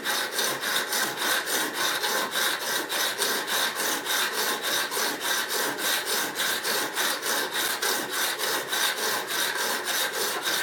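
Diamond sharpening bar, fine 50/40 grit side, stroked rapidly back and forth across a vegetable peeler blade on a guided rod sharpener, an even rasping at about five strokes a second, polishing the edge.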